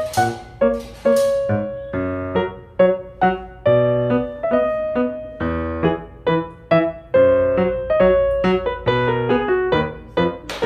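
Background piano music: a light melody of single notes, each struck and fading, several a second.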